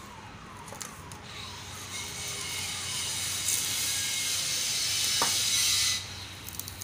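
Gritty bonsai soil mix poured into a pot: a hissing rush of granules that builds about a second and a half in and cuts off suddenly near the end.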